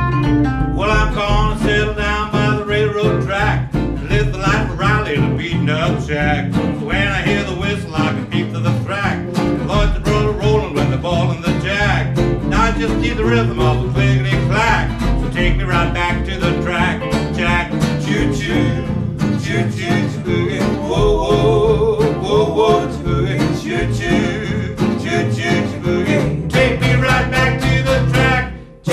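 Live boogie band playing: electric and acoustic guitars over upright bass, with a brief drop in level just before the end.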